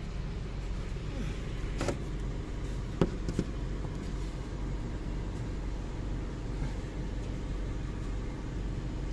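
Steady low mechanical rumble in the background, with a few short knocks about two and three seconds in.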